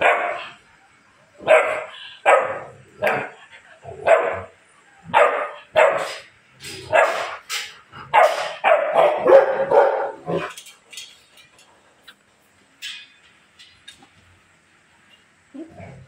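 Three-month-old Rottweiler puppy barking repeatedly, about a dozen barks in the first ten seconds. The barking then stops, leaving only a few faint clicks.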